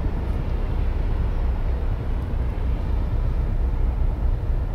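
Steady low rumble of a large ferry's engines, with a faint steady hum under an even haze of noise.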